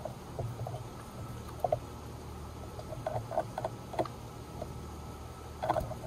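Irregular soft taps and clicks of birds pecking and feeding at a bird feeder, with a cluster near the end, over a steady low hum.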